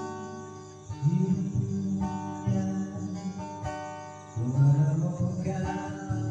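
Acoustic guitar strumming chords, with strong strums about a second in and again past the middle, each left to ring and fade.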